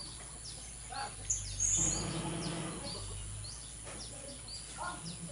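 Blue-crowned hanging parrots calling: a run of thin, high, downward-sliding chirps repeated over and over. A lower pitched sound runs underneath from about one and a half to three seconds in.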